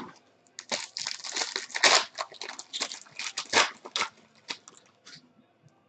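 Foil wrapper of a Panini Limited basketball card pack being torn open and crinkled in the hands: a run of irregular crackles that dies away about four seconds in.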